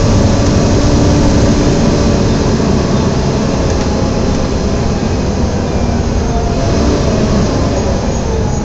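Volvo B7TL double-decker bus heard from on board, its engine running under way with the loud 'hoover'-like cooling fan drone over it, steady and easing slightly in level.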